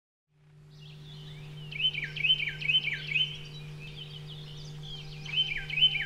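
A songbird singing: a phrase of four quick slurred notes, each dropping at the end, about two a second, begun again about five seconds in, over a steady low hum.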